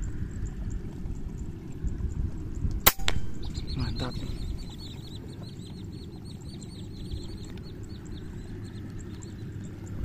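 A single sharp crack from an air rifle firing a slug at a sandpiper, about three seconds in. It is followed by several seconds of many quick, high bird chirps, with a low wind rumble underneath.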